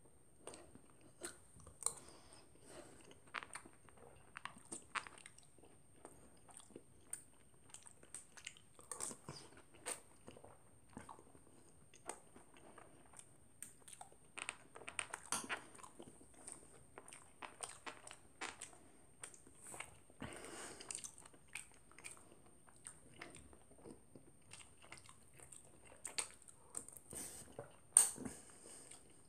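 Crunchy chocolate cereal in milk being chewed and crunched, spoonful after spoonful, in irregular crisp crunches, with a metal spoon scooping from the bowl. A sharp clink comes near the end.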